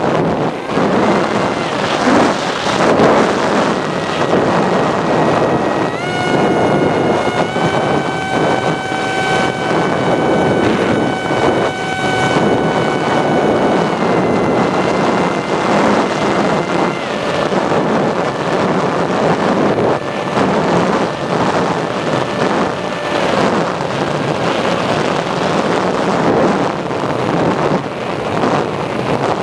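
Airflow rushing over the microphone of a radio-controlled model plane's onboard camera in flight, with the plane's motor whining throughout. The whine steps up in pitch twice, about six and seven seconds in, drops back around fourteen seconds and fades after about twenty-three seconds.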